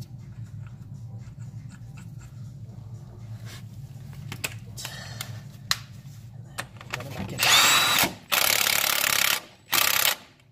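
Cordless impact wrench run on the crankshaft pulley bolt in three loud bursts, the longest about a second, late in the stretch. Before them there are light clicks of handling over a low steady hum.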